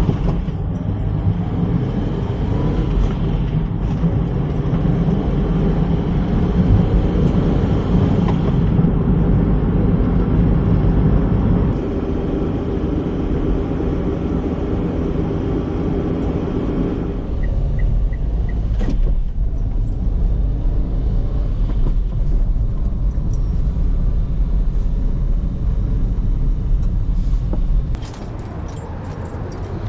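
Motor vehicle on the move: a steady low rumble of engine and road noise, which changes character about twelve and seventeen seconds in and drops in level near the end.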